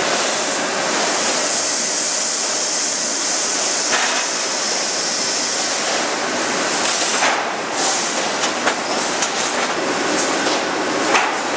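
Steel mill handling a red-hot steel bar on a cooling bed and roller conveyor: a loud, steady hissing din with metal clanks and clatter at intervals, a few of them sharp.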